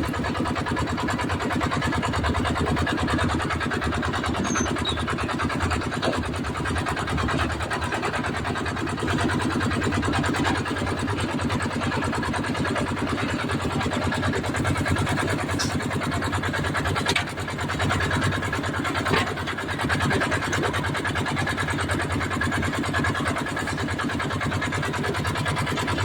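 Engine of a concrete mixer with lift hopper running steadily, with a few faint knocks.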